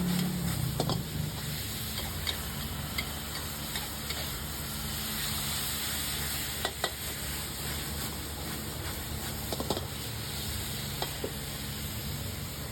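Food sizzling as it fries, a steady hiss with a few scattered sharp clicks.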